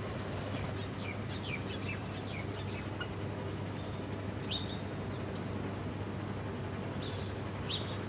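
Small birds chirping in quick, falling notes: a run of chirps in the first few seconds, then single chirps about halfway and near the end, after a brief flutter of wings at the start. A steady low hum lies underneath.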